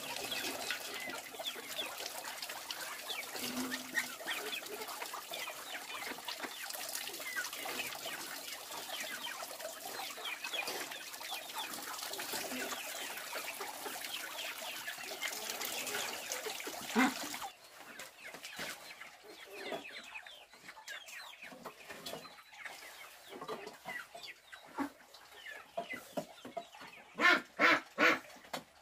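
Water running from a hose into a plastic basin and splashing onto wooden boards while hands are washed in it, with chickens clucking. The water sound cuts off suddenly about two-thirds of the way in, leaving scattered clucks, and a few loud short calls come near the end.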